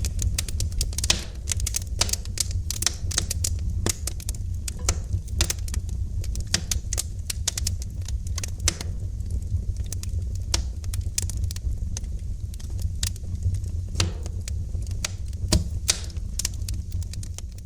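Wood fire burning in a fireplace: dense, irregular crackling and sharp pops over a steady low rumble of the flames.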